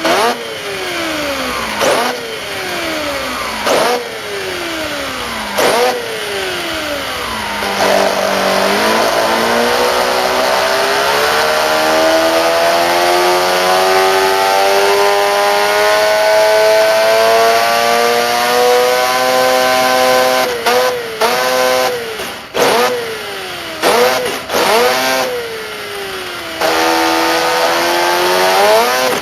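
Radio-controlled RX-7 FC drift car whose engine note sounds like a rotary engine. It revs up and drops back about every two seconds, then climbs slowly and holds high for several seconds, then gives a quick run of short blips and one more climb near the end.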